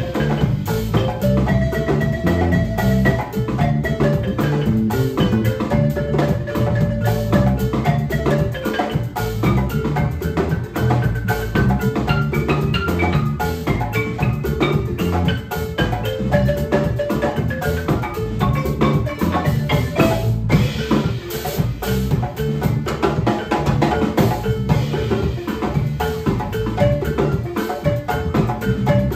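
Live instrumental band music led by a wooden marimba, struck with mallets by two players, over electric guitar, bass guitar, a drum kit and a djembe, playing without a break.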